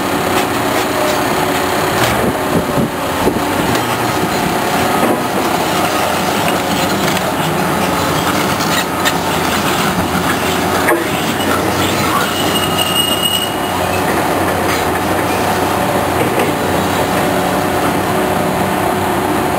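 Heavy highway construction machinery working: diesel engines running steadily with metallic clanking and rattling. A brief high squeal comes about two-thirds of the way through.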